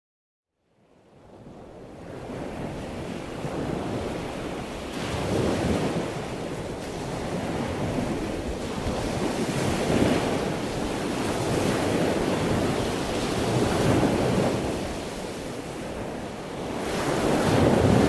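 Ocean surf breaking on a beach. It fades in from silence about a second in and then swells and eases as each wave comes in, about every four seconds.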